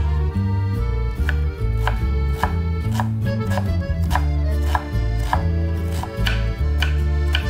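Kitchen knife chopping onion on a wooden cutting board, the blade knocking on the board about two or three times a second, over background music.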